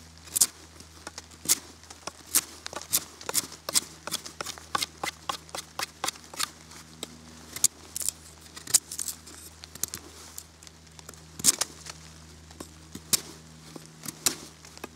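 The Sandvik steel blade of a Muela Kodiak bushcraft knife whittling a thin branch: a run of short, sharp cuts as shavings come off, irregular, about two or three a second, the blade going into the wood easily. A faint steady low hum runs underneath.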